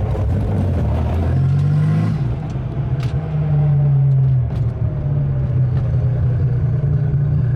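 Nissan 300ZX turbo's engine running through an open vacuum-actuated exhaust cutout. It revs up about a second and a half in, holds loudest for a moment, then eases off with its pitch falling away.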